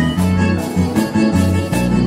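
Live vallenato band playing an instrumental passage: button accordion melody over a bass line, with a scraped metal guacharaca keeping a steady beat.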